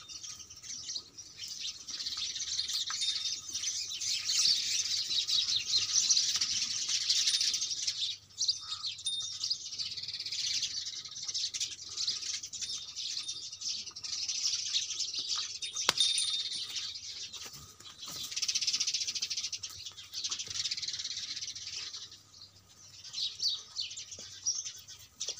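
A flock of small birds chirping continuously in a dense, high-pitched chatter that eases off briefly about eight seconds in and again near the end.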